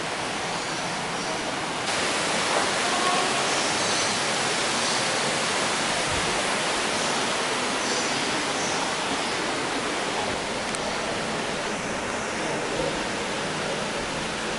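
Steady rush of running water, a little louder from about two seconds in.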